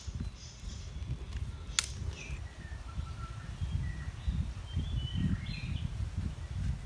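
Birds chirping, short scattered calls, over a steady low rumble, with one sharp click a little under two seconds in.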